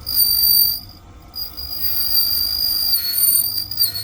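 Key duplicating machine's cutter whining at a high, steady pitch as it cuts a key blank: a short pass, a break of about half a second, then a longer pass with the pitch dipping slightly twice near the end.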